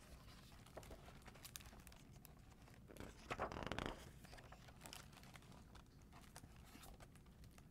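A hardcover picture book's page being turned: a brief paper rustle a little after three seconds in, with faint paper and handling ticks around it in near silence.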